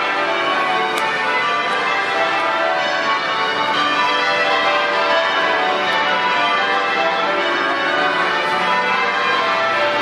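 Westminster Abbey's church bells ringing in changes: many bells strike one after another in a steady, unbroken cascade of overlapping tones.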